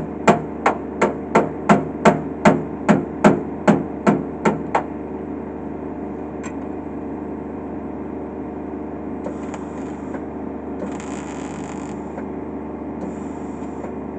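Hammer blows on car-body sheet metal during body repair work: quick even strikes, about three a second, stopping about five seconds in. A steady machine hum continues underneath, with a few short bursts of hiss near the end.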